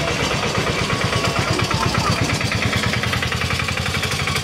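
Battery-powered ride-on toy car driving on asphalt: a steady, rapid rattle of its hard plastic wheels and drive motors.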